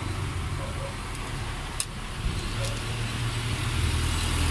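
Low steady rumble of road traffic, swelling near the end, with a few light clicks from small screws and tools being handled.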